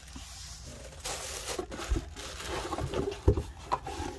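Handling noise of a cardboard gift box and a tissue-paper-wrapped package: rustling and light knocks, with two dull thumps. The louder thump comes a little after three seconds in, as the package is set down on a marble countertop.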